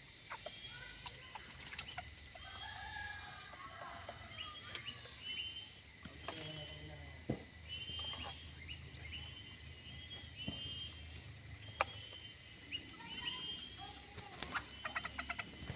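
Many birds calling in an aviary: a busy chatter of short, high chirps repeated over and over, mixed with some lower calls and a few sharp clicks, most of them near the end.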